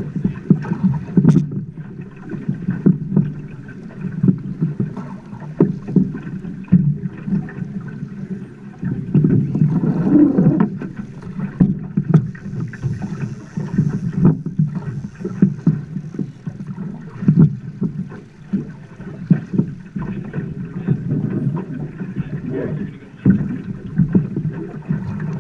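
River water rushing and slapping against the hull of a rowed boat, with irregular short knocks and splashes, including an oar blade dipping into the water.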